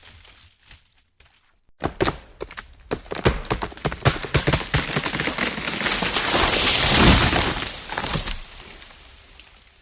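Tree branches cracking and splintering: a few faint snaps, then from about two seconds in a quick run of sharp cracks that builds into a loud rushing crash around seven seconds in and dies away.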